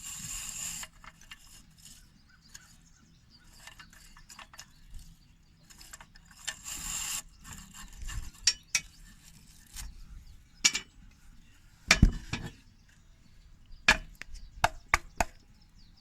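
A long bottle brush scraping inside a Mr. Steak grill's infrared burner to clear out dust, in short scrubbing bursts, followed by scattered metallic clinks and knocks, the loudest a pair about twelve seconds in.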